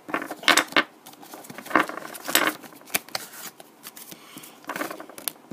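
Pokémon trading cards being handled and laid down by hand: several short rustling scrapes of card against card and table.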